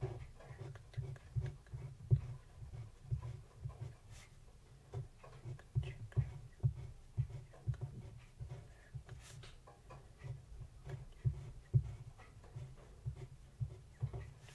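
Fine-tip liner pen drawing and dotting on paper, close-miked: an irregular stream of short soft taps and light scratches as small circles and dots are put down.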